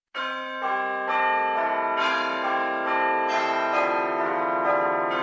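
Church bells pealing, a new bell struck about twice a second, each tone ringing on under the next.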